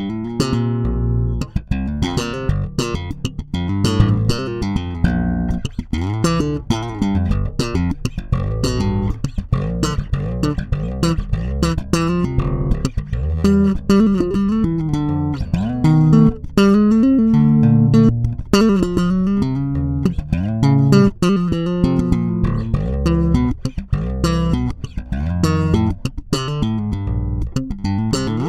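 Gopherwood four-string electric bass playing a continuous melodic line of plucked notes. Both pickup volumes are full up and the tone knob is rolled back to 35%.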